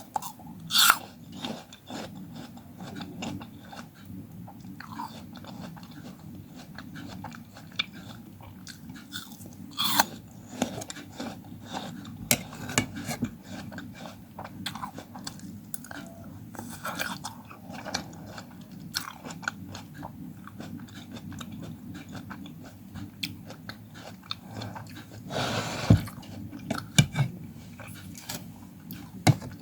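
Close-miked chewing and biting of fresh fruit: crisp, wet crunches and mouth sounds scattered throughout, with louder bites about a second in, around ten seconds, and near the end.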